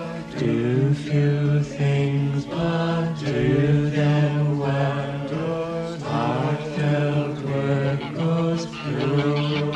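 A slow, gentle hymn-like song, with voices singing in a chant-like way over a steady low held note.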